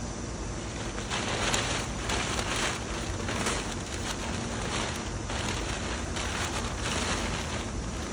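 Brown kraft packing paper rustling and crinkling as it is pulled and crumpled out of a cardboard box, in a run of irregular rustles.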